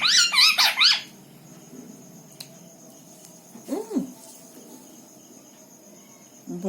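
Pet parrot squawking: a quick run of harsh calls in the first second, then a single short call about four seconds in.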